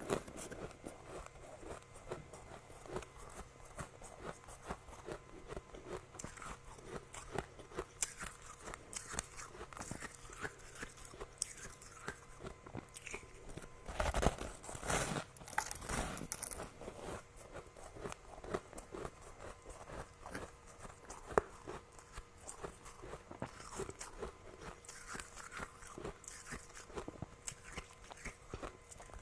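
Soft, powdery freezer frost being bitten and chewed close to the microphone: a continuous run of small crunches, with a louder burst of crunching about halfway through.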